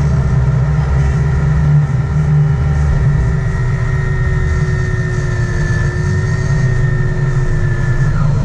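Sport-fishing boat's engines running under way, a steady low rumble with water rushing past the hull. A steady high whine rides over it and cuts off near the end.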